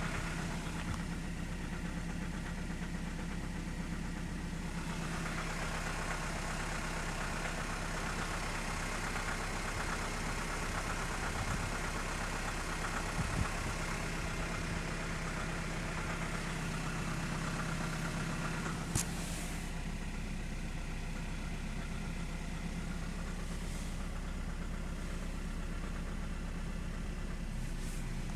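BMW N46B20 2.0-litre four-cylinder petrol engine idling steadily. Extra hiss lies over the engine note from about five seconds in until a single sharp click near the end.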